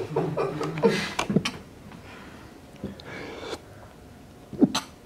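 A short stretch of low voice sound in the first second and a half, then quiet room tone broken by one sharp knock a little before the end.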